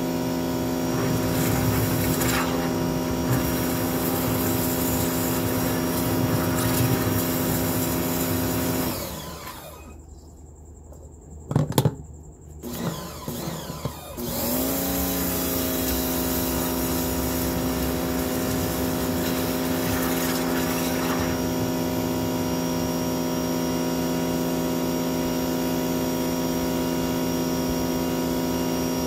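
Sun Joe SPX3000 electric pressure washer running a sewer jetter hose at a steady pitch. About nine seconds in, the motor winds down to a stop. A few knocks sound in the pause, then the motor spins back up about five seconds later and runs on steadily.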